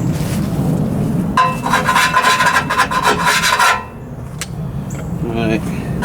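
Rapid scraping strokes rasping burnt-on soot off a fire-damaged vehicle. The scraping starts about a second and a half in and stops about two seconds later.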